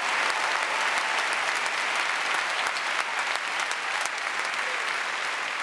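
Large audience applauding, a dense clatter of many hands clapping that slowly fades.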